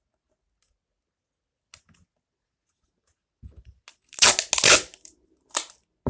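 A sticky craft strip being torn by hand, two loud tearing sounds in quick succession about four seconds in, with a few small clicks and handling rustles before and after.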